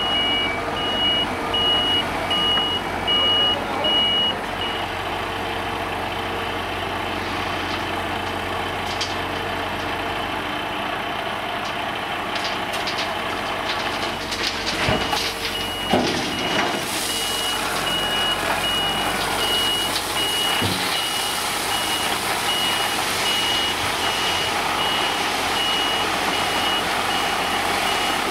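Heavy diesel tipper trucks and an excavator running, with a reversing alarm beeping in even pulses for the first few seconds and again from about halfway on. A few knocks come near the middle, and in the second half the Tatra Phoenix 8x8 tipper raises its bed and crushed stone pours off it.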